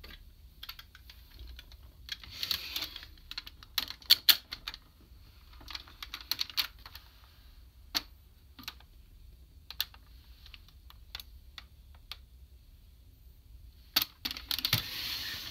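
Hard plastic parts of a DX Kyuranger combining robot toy clicking and rattling as it is handled: quick clusters of sharp clicks a few times, with single clicks in between.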